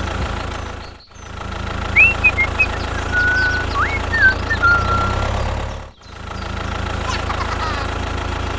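Tractor engine running at a steady low chug. It drops out briefly about a second in and again near six seconds, then carries on. A few short whistled chirps sound over it in the middle.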